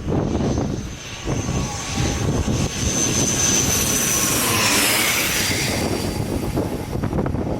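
Jet airliner on landing approach passing close by, its engines' whine growing louder and then dropping in pitch as it goes past about five seconds in. Gusty wind buffets the microphone throughout.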